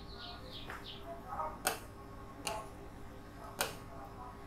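Three sharp clicks at uneven gaps of about a second, after a quick run of faint high squeaky chirps that ends about a second in.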